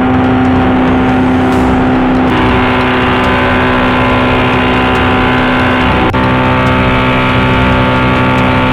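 A woodworking machine's electric motor running at a steady speed: a loud, even hum of several tones. The tones shift abruptly about two seconds in and again about six seconds in.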